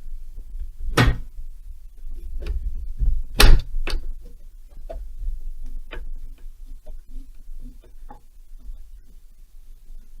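Metal hand tools knocking and clinking while a spanner or socket is picked out: two loud knocks about one and three and a half seconds in, then a run of lighter, irregular clicks.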